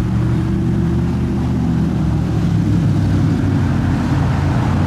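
A motor vehicle's engine running steadily, a low, even hum.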